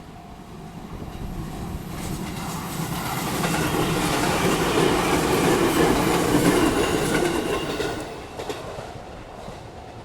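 A train passing over a railway level crossing, its wheels clattering over the rails. The sound builds from about a second in to a peak around the middle and fades near the end. The crossing's warning bell rings as a steady tone at the start, and the train's noise covers it.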